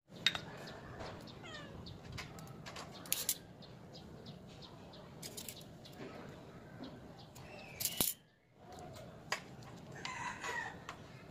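Chickens clucking in the background, with a few sharp clicks as scissors cut into a sausage.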